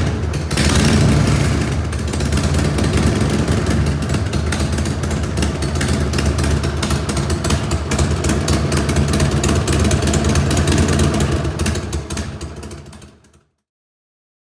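2001 Harley-Davidson Sportster XL1200C's air-cooled 1200 cc Evolution V-twin, just started, running loud at first and then idling steadily; the sound fades and cuts off about a second before the end.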